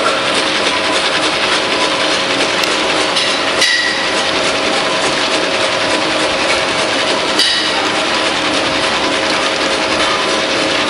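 "Krishna" pistachio slicing machine running: a steady motor hum under a dense, even clatter as nuts are cut and the slivers spill onto a stainless steel tray, with a couple of brief clicks.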